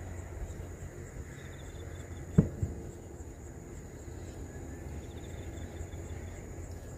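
Insects trilling steadily in the background over a low rumble, with a dull knock about two and a half seconds in and a smaller one just after it.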